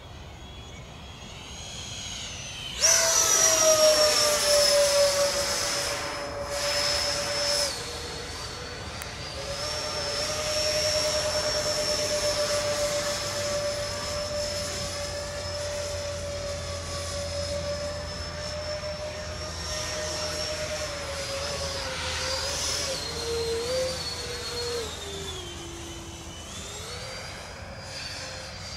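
Twin electric ducted fans of a Freewing MiG-29 RC jet whining in flight. The whine jumps up loudly about three seconds in as the throttle opens, holds steady with small shifts in pitch, then falls in pitch near the end as the throttle comes back.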